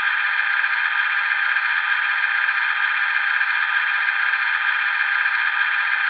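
LokSound digital sound decoder playing an EMD 645 diesel prime mover sound through the model locomotive's small speaker, running steadily and unchanging. It sounds thin, with no bass.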